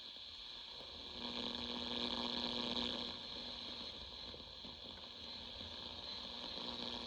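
AM radio static hissing from a General Electric 7-2930D portable radio's speaker, with a weak station trying to come through under it: poor AM reception. The hiss swells about a second in and eases a little after about three seconds.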